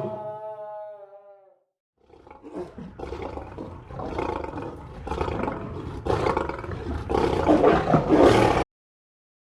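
Lion growling and roaring in repeated noisy surges that grow louder over about six seconds, then cut off abruptly. Before it, a drawn-out pitched call trails off and falls slightly in the first second and a half.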